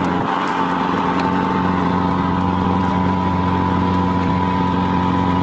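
A fishing trawler's engine running steadily, a constant hum with a fixed pitch.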